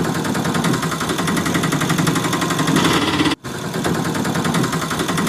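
Toy auto rickshaw's small motor and gears running with a steady, fast buzzing rattle, breaking off briefly about three and a half seconds in.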